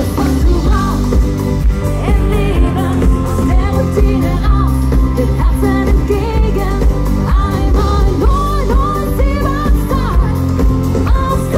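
Live Schlager pop band playing, with a sung lead vocal over bass and drums.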